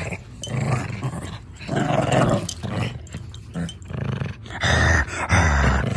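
Small dogs growling as they play-fight, in several rough bouts about a second apart, a little louder near the end.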